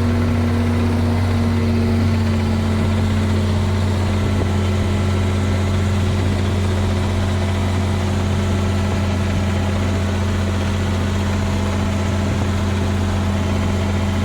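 Ford 9700 tractor's six-cylinder diesel engine running steadily at raised throttle, driving a PTO-powered manure spreader while pulling it across the field.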